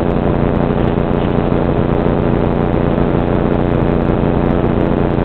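Steady mechanical hum made of several held tones, running at an even level with no change.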